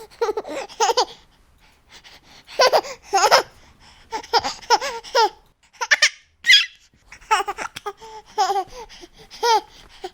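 A baby laughing in repeated short giggly bursts, with brief pauses between the fits of laughter.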